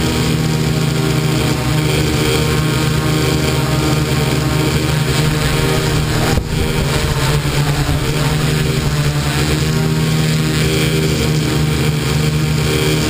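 Multirotor drone's electric motors and propellers humming steadily, heard close up from the camera the drone carries, with a brief break in the sound a little past halfway.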